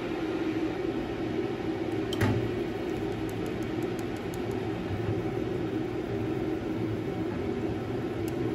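Wooden chopsticks beating raw eggs in a ceramic bowl, with soft light ticks against the rim and one sharper knock about two seconds in, over a steady background hum.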